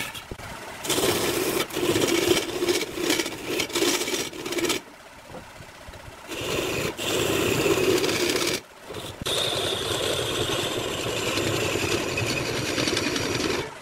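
Hand-held turning chisel cutting into a large wooden blank spinning on a lathe: a loud, rough scraping in spells of a few seconds, broken by a longer lull about five seconds in and a short one just before the halfway mark when the tool comes off the wood.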